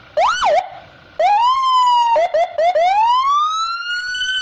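Police car siren sounding in a changing pattern. It starts with a quick up-and-down whoop, then gives a short rising wail and three quick chirps, and ends with a long, slowly rising wail.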